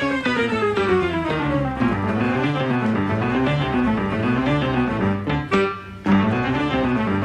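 Background music: instrumental with bowed and plucked strings and rising and falling runs of notes, with a short break about five and a half seconds in.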